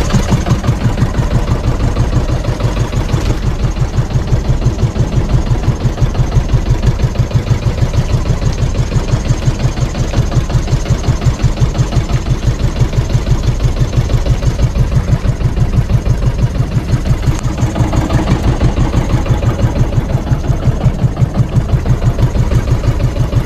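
Small engine of a wooden outrigger fishing boat running steadily with a regular low pulse, driving the boat along while it trolls.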